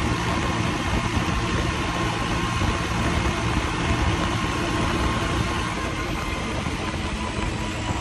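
Swaraj 855 tractor's three-cylinder diesel engine, fitted with a turbo and a modified injection pump, running steadily under load at road speed.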